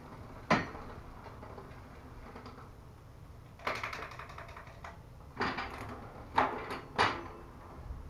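Raleigh Redux bicycle's Shimano trigger shifter and rear derailleur clicking as the chain is shifted across the rear cogs, with the wheel spinning. There is a sharp click about half a second in, then four clicking, rattling shifts in the second half. The shift cable has just been tightened to cure the shifter's long push before it engages.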